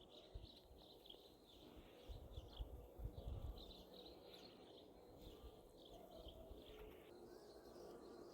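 Near silence of an outdoor garden, with faint, scattered bird chirps and a few low rumbles on the microphone a couple of seconds in.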